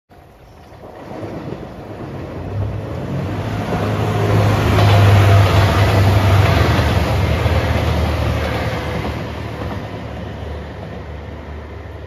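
A four-car JR Shikoku 2700 series diesel limited-express train passing on the rails, with a low engine drone and the rush of wheels. It grows louder to a peak about five seconds in, then fades as the train draws away.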